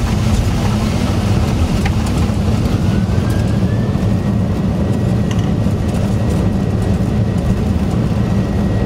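Steady engine and airflow noise inside an aircraft cockpit during the landing, with a faint tone that rises about a third of the way in and then holds steady.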